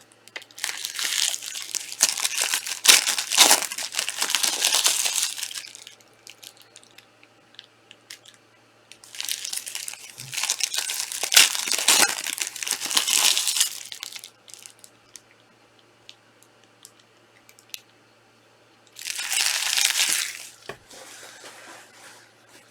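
Trading-card box and pack wrapping being torn open and crumpled, in three bursts of crinkling.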